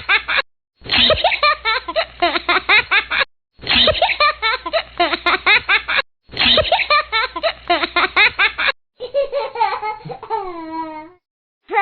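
A child laughing hard in four bursts of about two and a half seconds each, each cut off abruptly, then a shorter stretch near the end where the pitch slides down.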